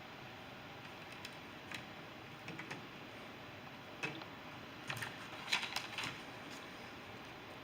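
Plastic Lego bricks clicking and clacking as pieces are handled and pressed together: scattered sharp clicks at irregular spacing, with a busier run of them past the middle.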